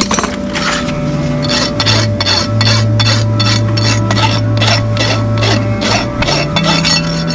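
Farrier's rasp filing a horse's hoof in quick repeated scraping strokes, about three a second. A radio plays music with a low bass line underneath.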